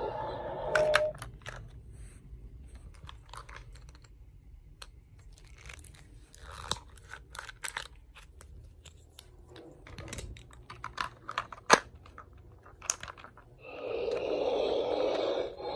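Plastic Sith holocron toy being handled: a string of small clicks and scrapes as its panels are moved and opened. Near the end the holocron's electronic sound effect starts up and holds steady.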